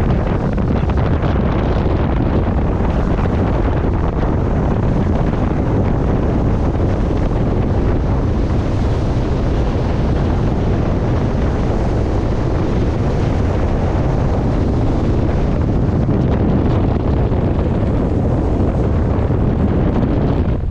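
Wind buffeting the microphone over the steady rush of bow wave and spray from a North-Line 42 Wheelhouse motor yacht running at speed, with its engine drone underneath.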